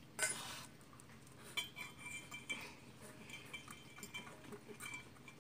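A pet eating from a metal food bowl, the bowl clinking and briefly ringing as it is nudged, with a sharper rattle just after the start.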